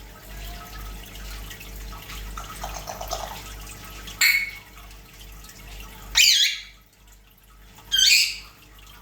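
African grey parrot calling: three short, loud, high-pitched squawks and whistles, about two seconds apart, the middle one sliding down in pitch, after some softer chattering.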